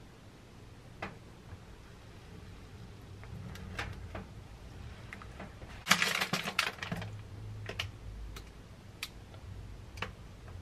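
Light clicks and knocks of kitchen handling, with a short burst of crackling from a plastic packet about six seconds in, the loudest part; a few single clicks follow.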